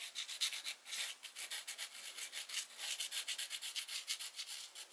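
Charcoal pencil scratching across a canvas sheet in quick, short sketching strokes, several a second: a dry, hissy scratching.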